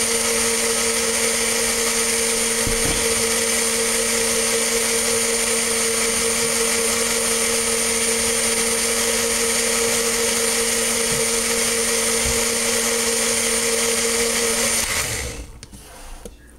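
Personal blender's motor running at a steady pitch, blending a liquid fruit smoothie, then switching off about fifteen seconds in.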